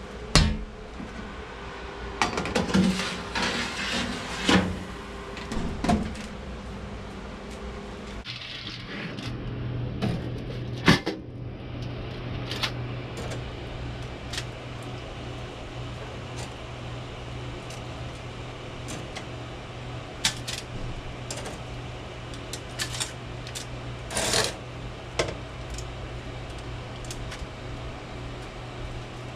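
An air fryer oven running with a steady fan hum, with a few sharp clicks and knocks. Then, about eight seconds in, metal tongs click and scrape on metal as cooked chicken thighs are lifted off the air fryer's mesh tray and set on a wire rack over aluminium foil, over a steady low hum.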